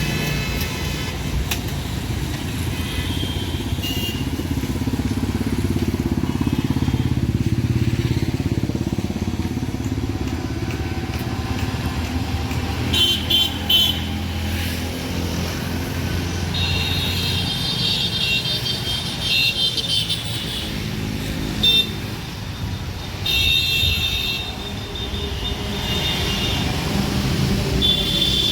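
Street traffic, mostly motorcycles, running past with a steady low rumble. Several short, high-pitched horn honks come in the second half.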